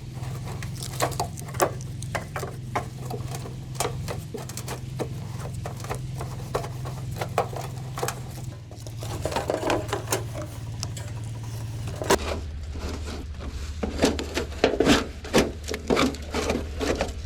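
Irregular clicking, tapping and scraping over a steady low hum; the hum drops in pitch about twelve seconds in, and the taps come louder and faster near the end.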